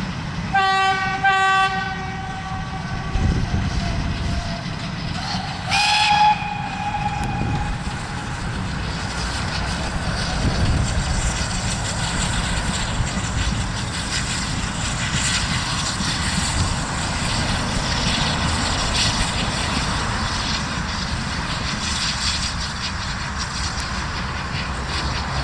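Steam whistle of GWR 1400-class 0-4-2 tank engine No. 1450: two short blasts about a second in, then a second, higher whistle about six seconds in. After that comes the steady noise of the locomotive working and the train running on the rails.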